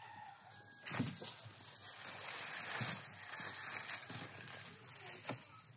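A thump about a second in, then parchment paper and aluminium foil crinkling and rustling under a whole lamb carcass being laid on them, easing off near the end.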